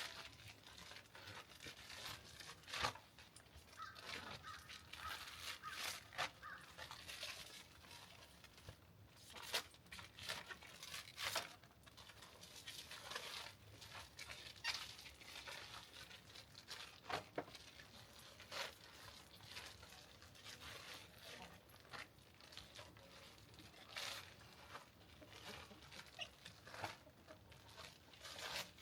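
Plastic shrink-wrap poultry bags crinkling and rustling in irregular bursts as they are opened and pulled over whole dressed chicken carcasses.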